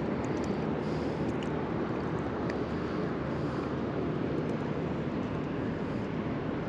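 Steady low engine rumble of a passing motorboat, with wind noise on the microphone.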